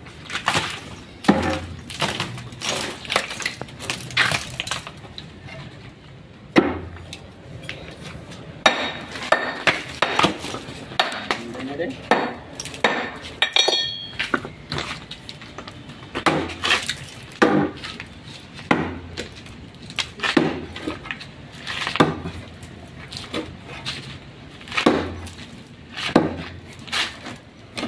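Metal tools striking concrete and stone as a tomb niche is broken open, in irregular sharp knocks and clinks about one or two a second, with one short ringing clink about halfway through.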